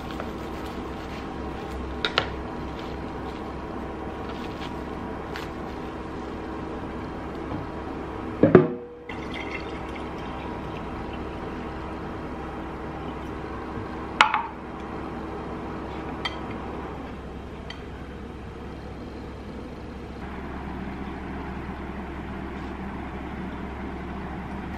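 Juice poured from a bottle into a glass mason jar, with a few sharp knocks and clinks of kitchenware, the loudest about a third of the way in. A steady background hum runs underneath.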